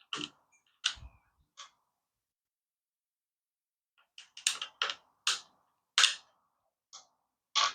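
Sharp clicks and clacks of small screwdriver bits and their case being handled: a few in the first couple of seconds, then a quick run of them after a pause of about two seconds.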